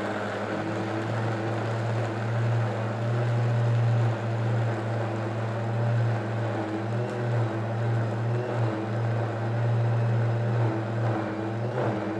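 Powerful OmniBlend countertop blender running at high speed with a steady whir, blending sunflower seeds and walnuts with water into a thick nut milk.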